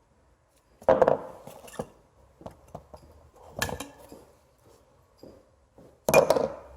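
Metal brake parts clanking as they are handled: three loud clanks a few seconds apart, with lighter clicks and taps between.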